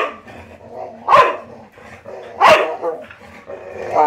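Dog barking in play, three loud barks about a second and a half apart with another starting at the end: a dog inviting play.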